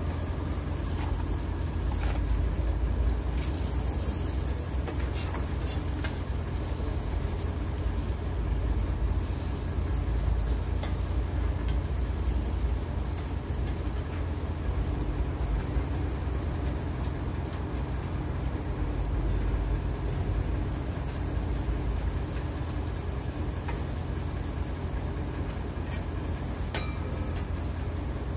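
Hamburgers sizzling faintly on a griddle over a steady low rumble, with a few light clicks of a metal spatula.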